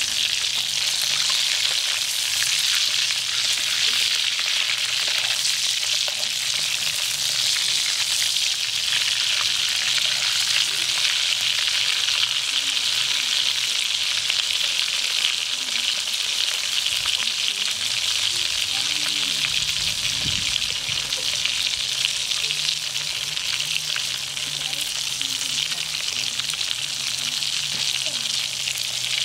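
Battered grasshoppers deep-frying in hot oil in a steel wok: a steady sizzle of bubbling oil.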